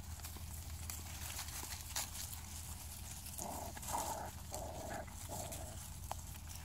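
Chiweenie (Chihuahua–dachshund mix) puppies play-fighting, with a quick string of about four short puppy yips a little past halfway, over faint crackling of dry leaves under their paws.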